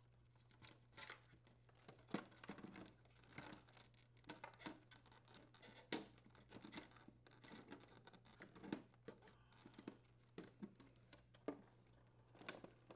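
Faint, irregular clicks, scrapes and rustles of hands handling a plastic ice maker cover and its wire harness, over a low steady hum.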